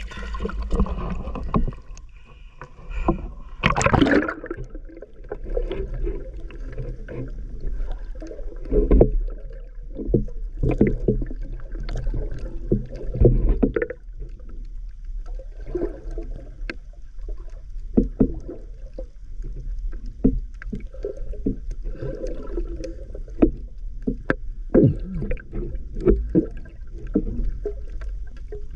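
Muffled underwater sound through a submerged camera: irregular sloshing and swirling of water from swimming movements over a steady low rumble, with a loud burst about four seconds in.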